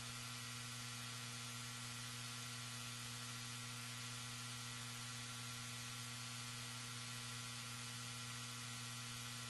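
Steady low electrical hum under a constant hiss.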